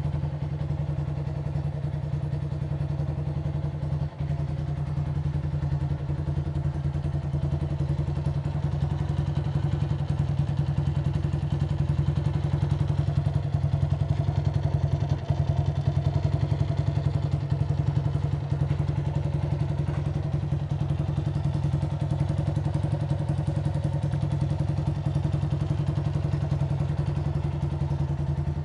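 Single-cylinder four-stroke engine of a Honda CG Titan 125 motorcycle idling steadily through an aftermarket Aluminium RS exhaust with a figure-eight outlet, a fast, even exhaust pulse that swells a little louder around the middle.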